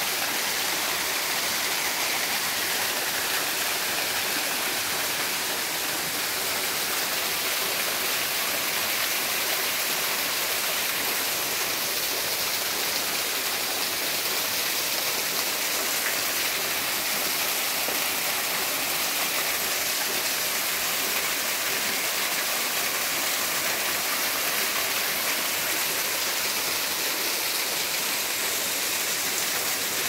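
Small waterfall pouring over rocks: the steady, unbroken rush and splash of falling water close to the microphone.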